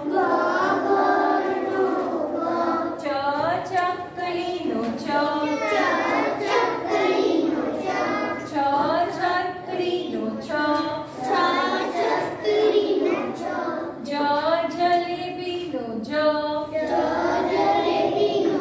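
A group of children chanting the Gujarati alphabet aloud together in a sing-song, letter after letter without a break.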